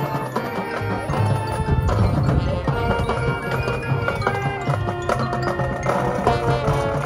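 Marching band playing its field show: sustained brass chords over struck mallet-keyboard notes and percussion from the front ensemble.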